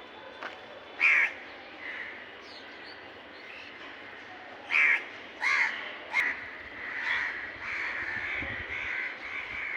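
Crows cawing: a single loud caw about a second in, a few more loud caws around the middle, then a near-continuous run of calls from several birds toward the end.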